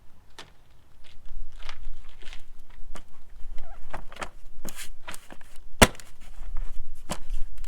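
A string of irregular knocks and clicks, the loudest a sharp knock about six seconds in: containers and parts being handled while the engine is filled with oil.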